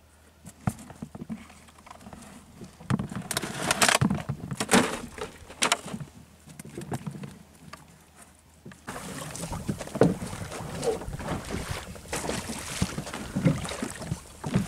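Scattered knocks, clicks and scrapes inside a small fibreglass fishing boat as handline and gear are handled. A steady wash of wind and water comes in from about nine seconds on.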